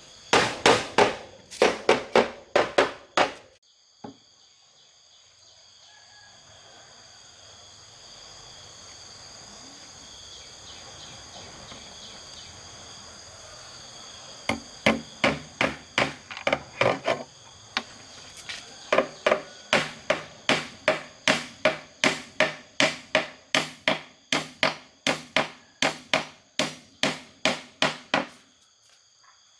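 Hammer blows on wood at about two a second: a short run at the start, then a longer steady run from about halfway until near the end. A steady high insect drone runs behind it.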